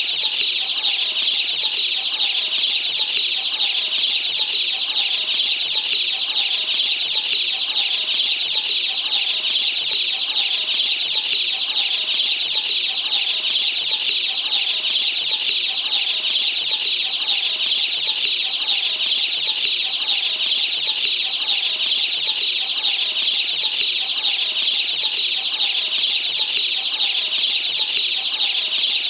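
A brood of baby chicks peeping all together in a steady, dense, high-pitched chorus, with a hen's lower clucking underneath.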